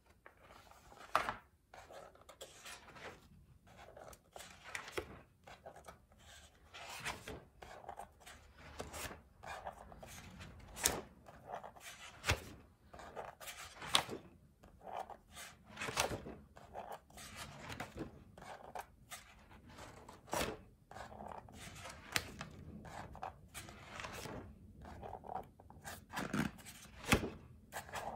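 Paper pages of a spiral-bound sketchbook being handled and turned: irregular short swishes, rubs and rustles of paper, about one every second or so.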